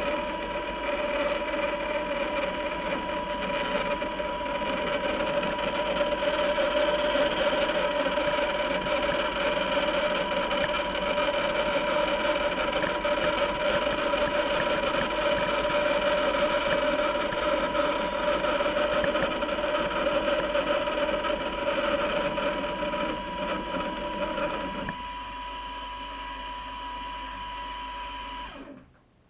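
Homemade band saw running and cutting through a small wooden block, a steady whirring with a constant whine. Near the end the cutting noise drops away, leaving a quieter steady hum, and then the saw stops suddenly.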